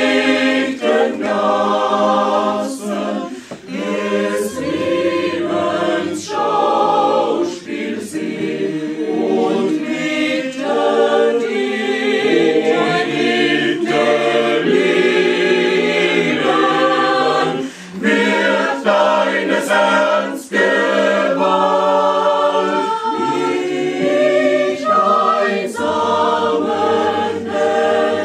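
Mixed choir of women's and men's voices singing a cappella, held chords in phrases with short breaks between them.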